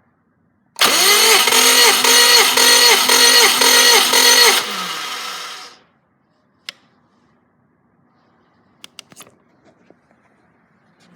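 Subaru EJ205 flat-four engine being cranked over by its starter motor for a compression test. The starter's whine dips and recovers in a steady beat about twice a second for roughly four seconds, then stops and fades out. A few sharp clicks follow.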